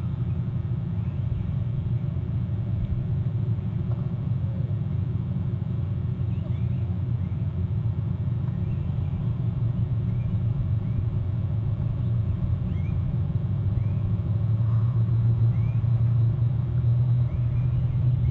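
Steady low rumble that grows louder in the last few seconds, with faint short high bird chirps recurring about once a second over it.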